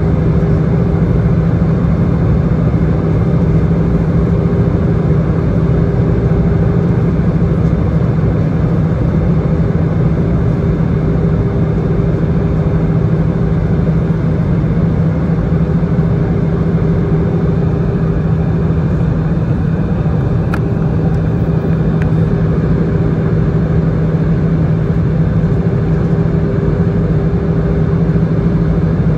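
Steady cabin noise inside an Airbus A319 airliner in flight: the drone of its turbofan engines and the rush of air past the fuselage, with a steady low hum.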